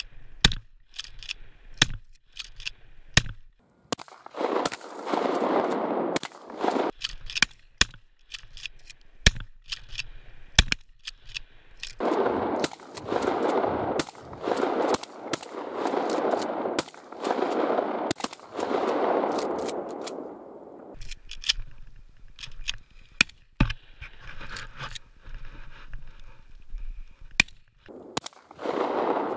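Shotguns firing, a string of irregularly spaced blasts. Between them come long stretches of a loud rushing noise, one from about four to seven seconds in, one from about twelve to twenty-one seconds in, and another near the end.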